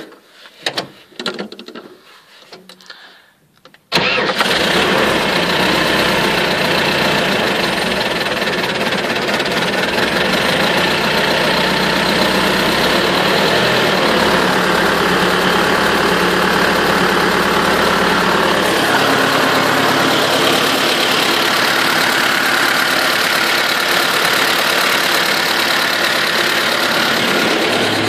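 Turbocharged T-40AM tractor's air-cooled D-144 diesel starting abruptly about four seconds in, after a few light clicks, then running steadily. About two-thirds of the way through, the deep low part of its sound drops away.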